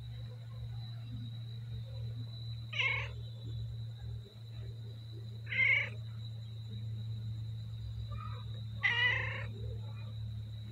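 Cat meowing three times, short calls a few seconds apart, over a steady low hum.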